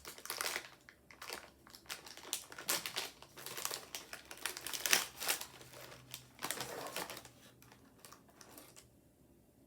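Plastic cookie wrapper crinkling and crackling as it is handled and opened, in irregular crackles with the loudest about five seconds in, dying away near the end.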